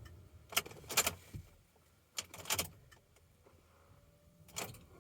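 Car keys jangling and clicking in short bursts, about six times, as the ignition is about to be turned; the engine is not yet running.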